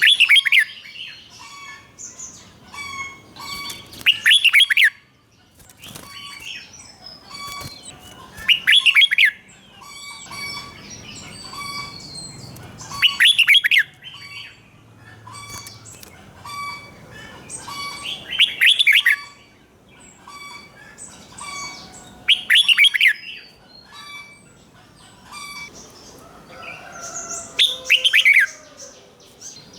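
Red-whiskered bulbul singing: a loud, short warbled phrase about every four to five seconds, seven in all, with softer chirping between them.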